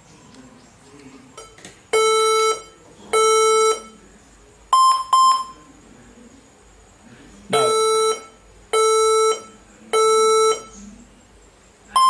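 HP ProBook 440 G7 laptop sounding its startup error beep code: two long, lower beeps, a pair of short, higher beeps, then three more long, lower beeps. The beeping continues even after the fan has been cleaned, so the fault lies elsewhere.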